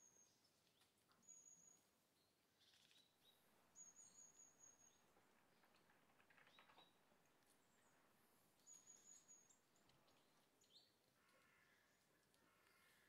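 Near silence with faint, very high bird chirps in about four short bursts, plus a few soft faint knocks.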